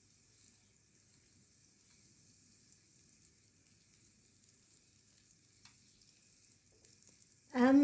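Butter sizzling faintly as it melts in a hot grill pan, an even, quiet hiss.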